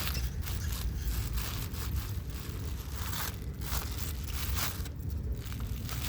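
Packaging being torn open and handled as a boxed steel anvil is unpacked: irregular crinkling, rustling and tearing.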